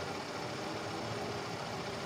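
A machine running steadily, an even mechanical hum and rush with a few faint steady tones and no knocks or breaks.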